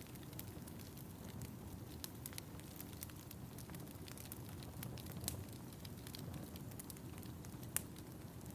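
Wood fire crackling in a fireplace: a steady low rumble with scattered sharp pops and snaps, two louder pops about five and eight seconds in.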